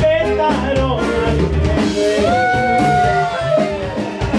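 Live norteño-style band playing, with accordion, guitar and drum kit behind a man singing into a microphone. About two seconds in he holds one long note that slides down near the end.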